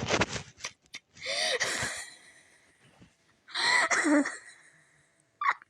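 Two breathy, wheezing vocal sounds from a person, about a second in and again near four seconds in, the second dropping in pitch at its end.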